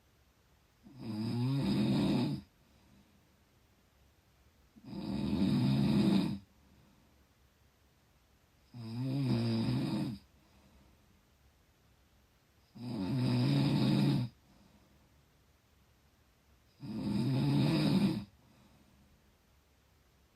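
Steady snoring in deep sleep: five snores of about a second and a half each, coming about every four seconds, with quiet breathing gaps between them.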